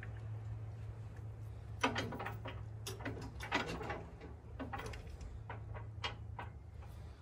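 Metal clunks and rattles from a 12,000 lb winch being shifted and bolted onto its steel mounting bracket, a handful of knocks between about two and six seconds in, over a steady low hum.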